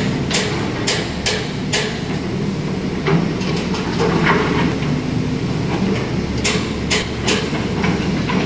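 Steady low rumble of a moving vehicle, with runs of sharp clacks a few tenths of a second apart near the start and again after about six and a half seconds.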